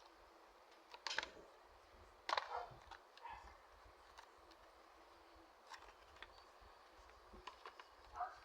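Razor-cartridge packaging being handled: a few brief rustles and clicks, the loudest about a second in and just after two seconds, with faint ticks between.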